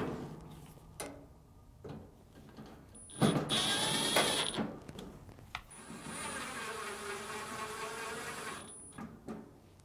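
Cordless power driver running in two screws, one after the other: a short whining run about three seconds in, then a longer steady run from about six seconds to nine, with a few small handling clicks before.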